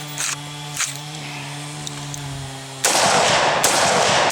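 An AR-15 rifle firing, a sudden loud report about three seconds in with a second sharp peak soon after, dying away slowly. Before it there are a couple of light clicks over a steady low hum.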